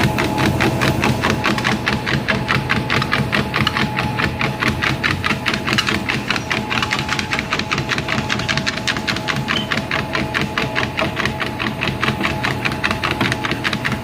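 Motorized treadmill running with a steady tone, and a dog's paws striking the moving belt in a quick, even rhythm of about four beats a second as it trots.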